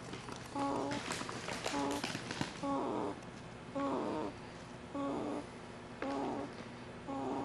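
Snoring in a steady rhythm, about one breath sound a second: a short buzzing, pitched snore alternating with a rougher, raspier breath. A few faint clicks come between about one and two and a half seconds in.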